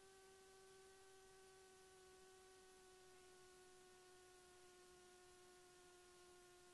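Faint steady electrical whine with a few evenly spaced overtones, its pitch sinking slowly, in the Cessna 172's headset intercom audio; no engine or wind noise comes through.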